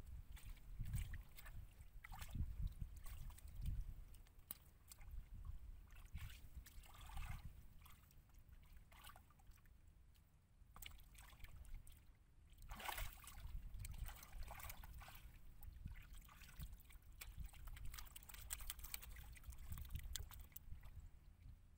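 Hands digging and scraping in damp sand and mud, with scattered rustling. A faint, uneven low rumble runs underneath.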